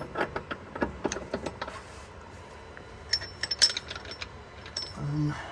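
Metal hand tools and driveshaft hardware clinking and clicking as they are handled, a run of quick clicks followed about three seconds in by a cluster of bright, ringing metal clinks.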